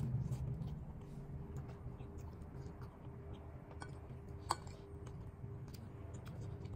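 Eating noodles: quiet chewing with small clicks of a fork against the bowl, and one sharper clink of the fork on the bowl about four and a half seconds in.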